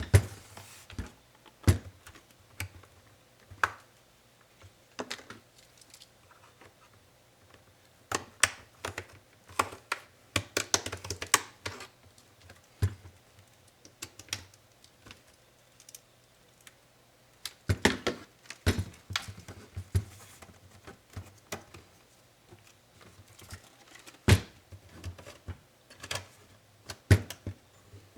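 Irregular clicks, taps and light knocks as a Dell Inspiron 7558 laptop's plastic and metal parts and small tools are handled during disassembly, with busy flurries of clicking about a third of the way in and again past the middle.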